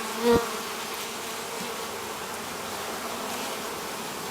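Honeybees buzzing steadily around an opened hive, a continuous hum. A short, louder sound, like a knock or brief exclamation, comes just after the start.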